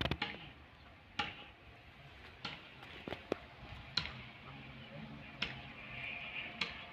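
Distant freight train rolling past, its wheels giving sharp clicks at uneven intervals, about a second apart, over a faint low rumble.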